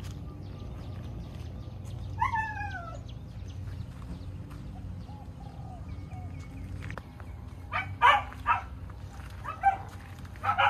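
Small dogs barking: one drawn-out yelp that falls in pitch about two seconds in, then a run of sharp barks from about eight seconds on, the loudest sounds here.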